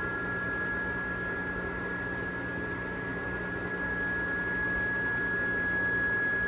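Hand-built Aeolian harp sounding in the wind: its strings hold two steady high singing tones over a breathy hiss and a low hum, growing slightly louder in the second half.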